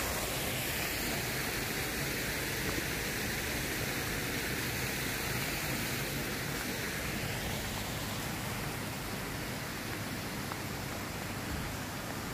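Steady rushing of falling water, as from a waterfall in an artificial rock garden, a little stronger for the first seven seconds or so and then easing off slightly.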